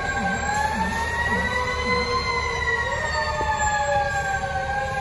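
Fire truck siren wailing slowly: its pitch climbs over about two seconds, then falls gradually. A lower tone dips and rises about twice a second underneath for the first two seconds.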